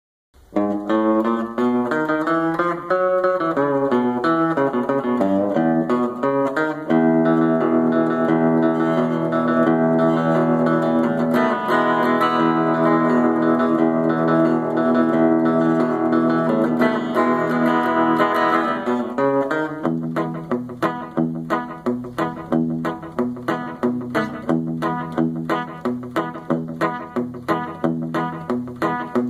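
Les Paul-style electric guitar playing a rockabilly tune in E. It opens with moving single-note runs, then holds ringing chords, and from about twenty seconds in settles into a fast, even picked rhythm.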